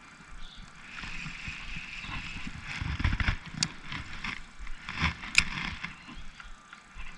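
Fishing reel being cranked, with a few knocks and two sharp clicks from handling in the boat.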